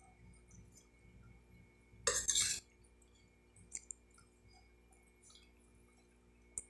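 A metal spoon scraping a glass bowl once, briefly, about two seconds in, amid faint eating sounds, with a couple of small clicks later.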